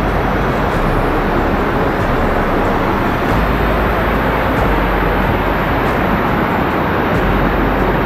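Waterfall: a loud, steady rush of falling water with no break in it.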